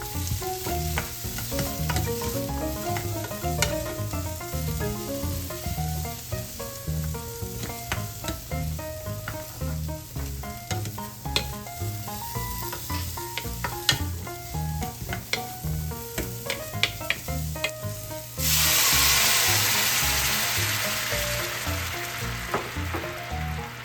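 Frying in a pan over background music with a steady beat: light clicks and stirring, then about three-quarters of the way through a loud sizzle starts suddenly and slowly dies down, as food goes into the hot pan.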